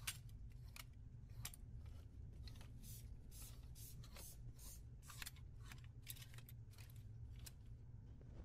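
Faint, short swishes of basting thread drawn through the cloth and of the cloth being handled during hand sewing, many at irregular intervals over a low steady hum.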